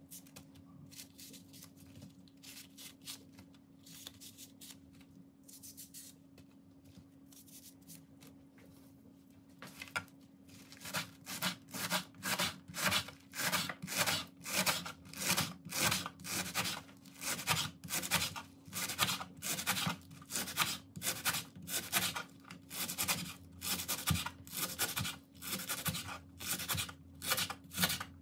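Kitchen knife cutting leeks on a wooden cutting board. For about the first ten seconds there are quiet scraping and rubbing sounds as the stalks are split lengthwise. Then comes steady chopping, about two cuts a second, the blade knocking the board on each stroke.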